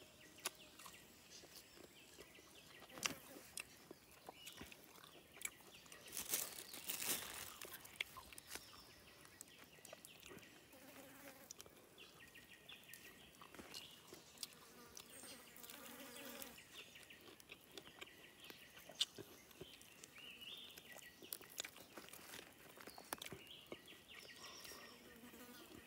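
Quiet forest with faint insects buzzing, broken by scattered soft clicks and crunches as grilled birds and sticky rice are eaten by hand. The crunching is loudest briefly about six to seven seconds in.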